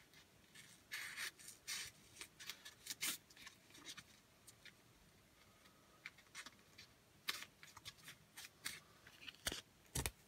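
Scissors cutting metal foil tape into strips: faint, scattered snips with pauses between them, the crispest ones near the end.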